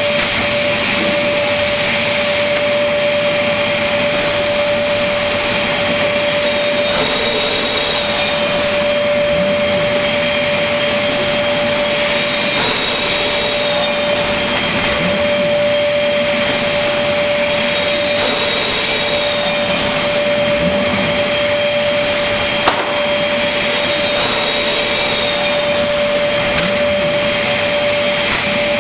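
Automatic MDF panel-cutting machine running, a steady motor whine over a loud machine noise, with a faint cycle that repeats about every five or six seconds and one sharp click near the end.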